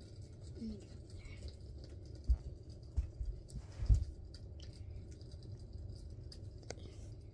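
Handling noise of a small plastic skincare container held right up against the phone: a few dull bumps about two, three and four seconds in, with faint clicks and rustle between them.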